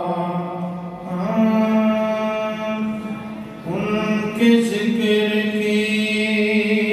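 A man's solo voice chanting a Punjabi devotional kalam into a microphone, in long held notes that shift up in pitch about a second in and again around the middle.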